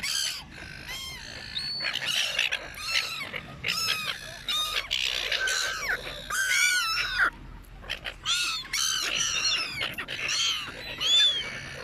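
A flock of seagulls calling, many short, harsh, overlapping calls one after another as the birds crowd in to be fed chips.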